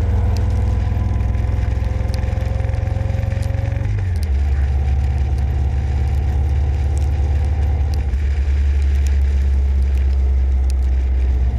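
Motorcycle engine running at road speed, heard from a riding camera, with a heavy low rumble. Its note rises slowly for the first few seconds, then shifts about four seconds in.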